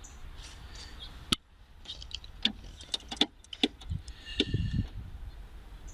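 Handling noise: a sharp click about a second in, then a run of light, irregular clicks and small rattles.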